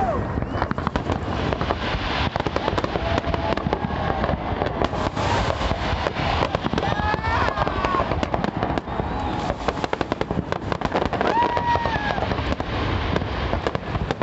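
Fireworks going off in a dense, continuous run of bangs and crackles.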